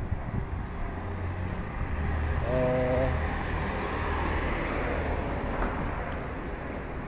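Street traffic on a city avenue: a low steady rumble, with a car passing whose tyre and engine noise swells in the middle and fades. A brief steady tone sounds about two and a half seconds in.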